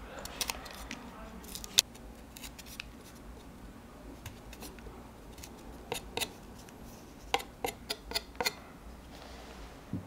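A small knife cutting and prying the hard outer shell off raw chestnuts: sharp crisp snaps and clicks of the shell in scattered bunches, with a quick run of about six in the second half. It ends with a dull thud as a peeled chestnut is set into the bowl.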